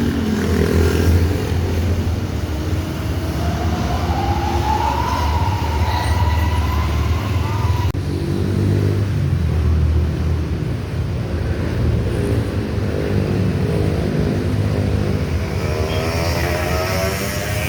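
Large bus diesel engines running with a steady low rumble, a smooth rising whine a few seconds in, and an engine note climbing near the end.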